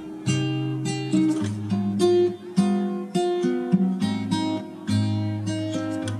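Instrumental background music: a quick run of separate pitched notes over held lower notes.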